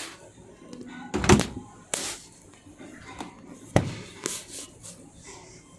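A refrigerator door shutting with a heavy thud about a second in, followed by a couple of sharp clicks and knocks.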